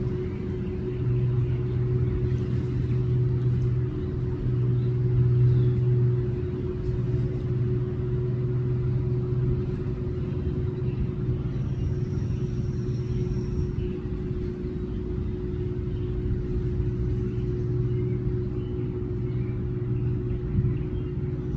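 A steady low mechanical hum and rumble. A thin high whistle sounds for about two seconds in the middle.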